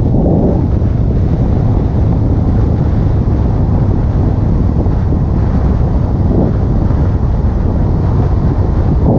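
Car engine running steadily through an Acuity aftermarket cold air intake, a dense low rumble.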